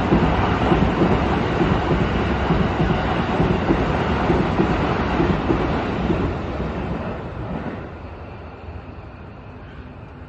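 Keikyu Line train passing close by at a level crossing, a loud steady rumble of wheels on the rails that dies away from about seven seconds in as the train moves off.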